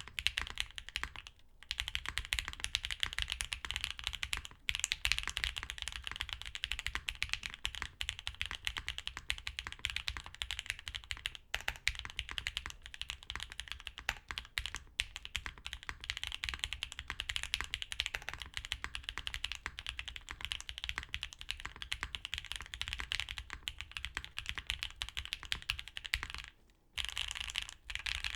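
Rapid, continuous typing on a mechanical keyboard with lubed Durock L2 Creamy Green linear switches, GMK keycaps and a taped, foamed POM plate: a dense stream of keystroke clacks with a few brief pauses.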